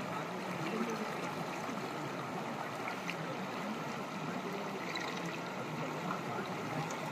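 Shallow river water flowing and rippling steadily over rocks and stones.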